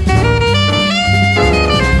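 Alto saxophone playing a jazz solo line, the notes changing several times a second, over a small band of piano, upright bass and drums.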